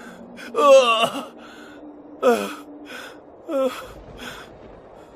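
A person gasping and moaning in anguish: ragged breaths broken by three short groans that slide down in pitch, the first and loudest about half a second in.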